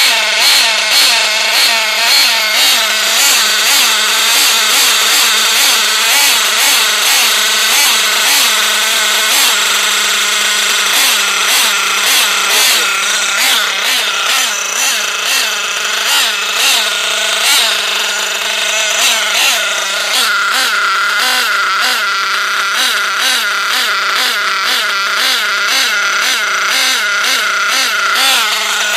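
Picco .28 two-stroke glow (nitro) engine of an RC buggy running during its break-in, its pitch wavering up and down.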